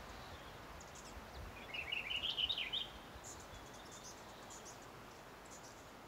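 A small songbird sings one short, jumbled warble that rises in pitch, about two seconds in, over a steady outdoor hiss. A few faint, very high short notes come and go.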